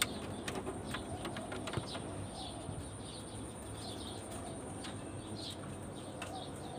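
Small birds chirping faintly in the background, short high calls about once a second, with a few light clicks and taps in the first two seconds.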